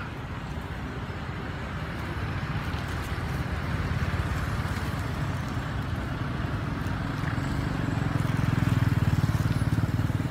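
A motor engine running steadily, with a low rumble that grows louder over the last few seconds.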